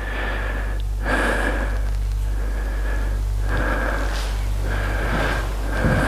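A person breathing heavily close to the microphone, in and out about once a second, each breath with a faint whistle, over a steady low hum.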